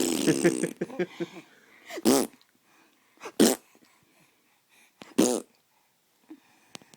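The end of a blown fart noise, then a baby's short breathy laughs: three brief bursts spaced a second or two apart.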